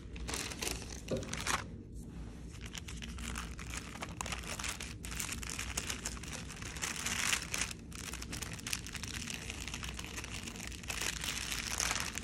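Paper inner wrapper of a sterile surgical glove pack rustling and crinkling as it is unfolded by hand, with many small crackles, a little louder around the middle and near the end.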